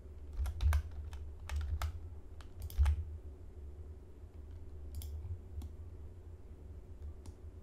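Computer keyboard keys tapped in short quick clusters during the first three seconds, then a few single clicks later: shortcut keys pressed while modelling. A steady low hum runs underneath.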